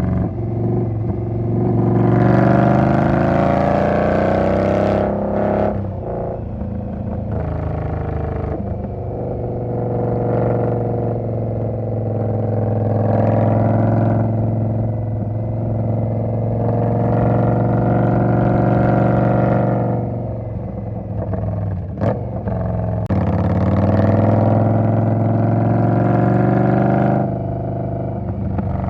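A 2020 Indian Scout motorcycle's V-twin engine, loud and unsilenced by any talk, repeatedly pulling up in pitch for a few seconds and then dropping back, as in a run of accelerations. A single sharp click about three-quarters of the way through.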